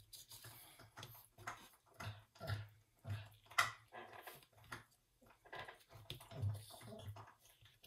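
Faint, scattered taps, knocks and rustles of small paper swatch cards being picked up, slid and set down on a plastic-covered table, with a sharper click about three and a half seconds in.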